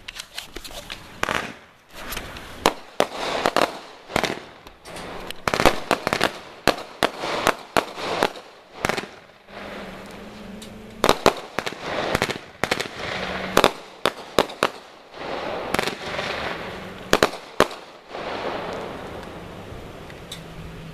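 Consumer fireworks going off: a long, irregular run of sharp bangs and pops with crackling between them, each trailed by a short echo, thinning out near the end.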